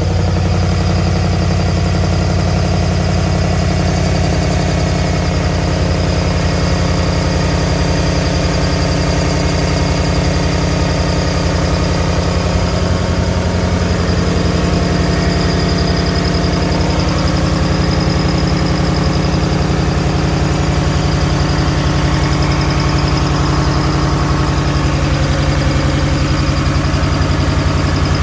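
2008 Mustang GT's 4.6-litre V8 idling steadily with a loud ticking from the engine, a noise whose cause the owner does not know.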